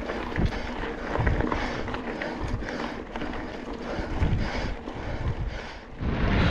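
Wind buffeting an action camera's microphone while a mountain bike rolls over rough, rocky trail, with irregular low thumps and rattles from the bike.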